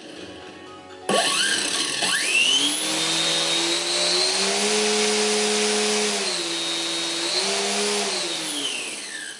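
Hacker B50-13XL brushless electric motor in a large Hangar 9 Cessna model driving its propeller during a run-up: the throttle opens about a second in with a whine rising in pitch over a couple of seconds, under loud propeller rush. It holds at high power, dips briefly in the middle and comes back up, then winds down near the end with the pitch falling.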